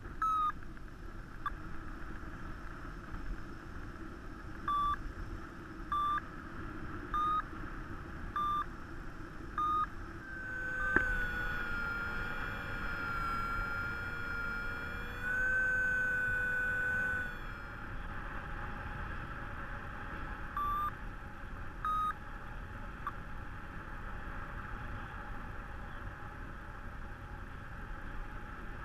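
Flight variometer sounding short single beeps about a second apart, then a steady tone wavering slightly in pitch for about seven seconds, then a few more beeps. A steady rush of wind on the microphone runs underneath, with a single sharp click near the start of the long tone.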